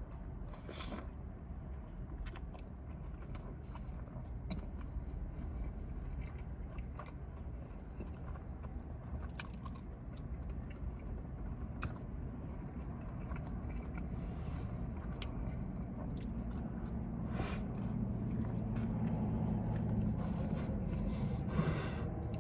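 A person chewing and biting mouthfuls of food close to the microphone, with many small scattered mouth clicks. A low steady hum comes in about three-quarters of the way through.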